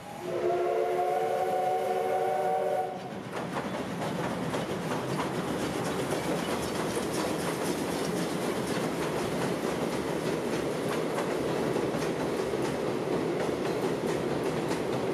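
JNR C10 steam tank locomotive sounding its whistle, a chord-like blast of about three seconds, then the train rumbling steadily across a steel girder bridge with clattering wheels as the locomotive and its passenger coaches pass.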